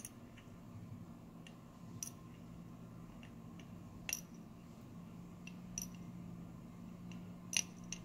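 Light, scattered metallic clicks and taps, about ten of them, as a Yale 6-pin lock cylinder is taken apart: the plug and follower are worked through the shell and brass pins drop into an aluminium pinning tray. The loudest click comes near the end, over a steady low hum.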